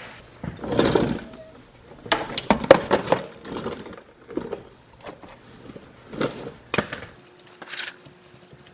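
A 3/8-inch ratchet with a 17mm socket loosening a car's oil drain plug: a short noisy burst about a second in, then a quick run of sharp metallic clicks and clinks, followed by a few scattered single clicks.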